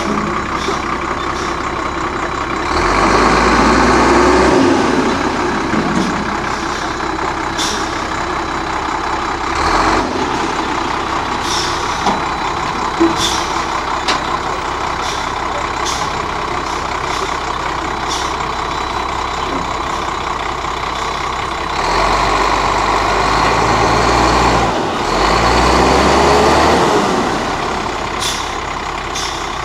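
Diesel engine of a Fleetwood American Eagle motorhome running as the coach creeps along a railway flatcar. It gets louder for a couple of seconds near the start and again for several seconds near the end. Short sharp ticks come now and then.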